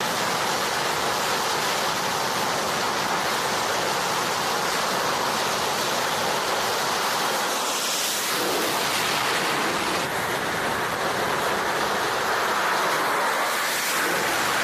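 F/A-18-type fighter jet's engines at full power for a catapult launch from the carrier deck: a steady, loud rushing roar, with a brief burst of higher hiss about eight seconds in as the jet is shot past.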